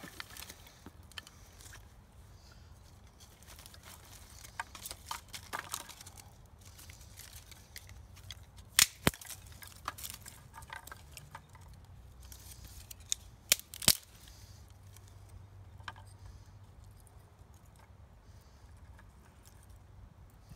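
Split fatwood sticks being handled, broken and laid over a small fire of fatwood shavings. There are a few sharp wooden snaps, the loudest about nine seconds in and two close together near fourteen seconds, with quieter clicks and rustling in between.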